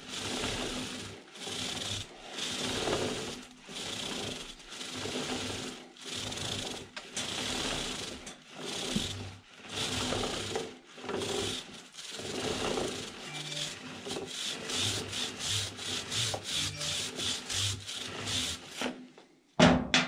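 Stiff-bristled chain brush scrubbed back and forth along a kerosene-soaked motorcycle drive chain, a rough rasping stroke about once a second, then quicker strokes in the second half, stopping just before the end.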